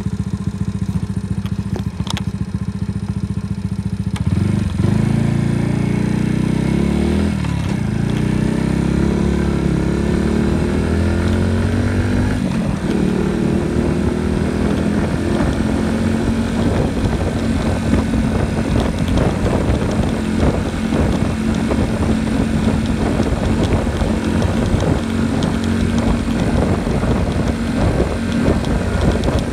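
Small motorcycle's engine, heard from the handlebars, idling for about four seconds, then pulling away and revving up through the gears, with the pitch dropping back at each shift about seven and twelve seconds in, then running steadily at cruising speed.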